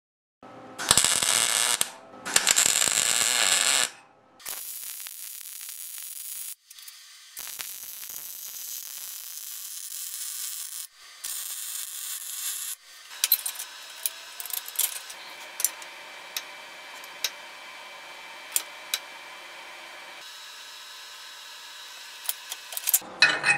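Wire-feed welder tacking a steel tube track bar mount onto a truck frame: several hissing, crackling runs of a few seconds each with short breaks between, the first two the loudest, and sharp pops in the later runs.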